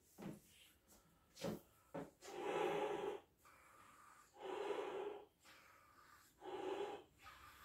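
A clear 24-inch Belbal latex balloon being blown up by mouth: three long, hard breaths pushed into it, each about a second long. Short, sharp gasps of breath drawn in come before and between them.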